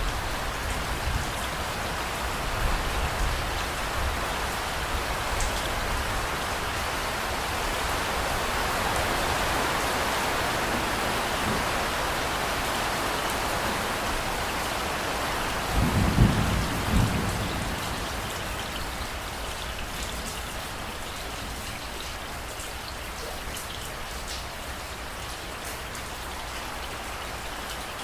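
Steady rain falling, growing louder toward the middle and easing off later. Thunder rumbles low near the start, and a louder clap of thunder comes about sixteen seconds in.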